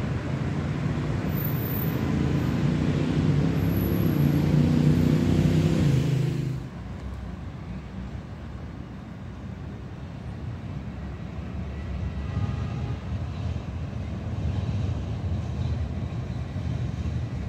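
A motor vehicle passing close by with a rising engine hum, cut off abruptly about six seconds in. Then a quieter, steady background of street traffic.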